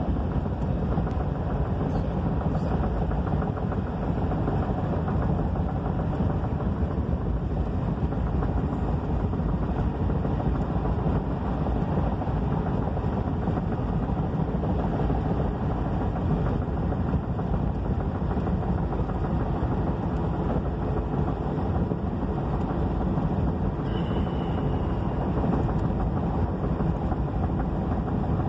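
Steady road and engine noise of a car driving on a freeway, heard from inside the car, with no changes in level. A short, high, slightly falling tone comes once near the end.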